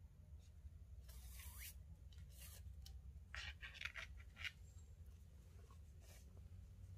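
Faint rubbing of micro cord pulled through the weave of a paracord bracelet, in a few short strokes, over a low steady hum.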